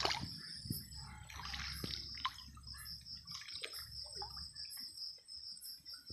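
Shallow stream water sloshing and trickling in small irregular splashes, as someone wades and moves his hands through the water, with a steady high-pitched whine above it.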